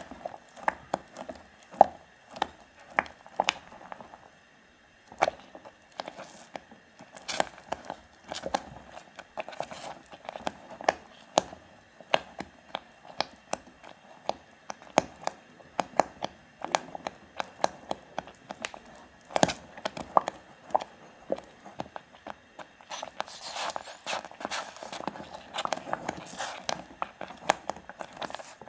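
Wire whisk beating thick egg-yolk custard cream (pastry cream) in a stainless steel saucepan, its wires clicking and scraping against the pan's sides and bottom in an irregular run of taps, with a short pause about four seconds in.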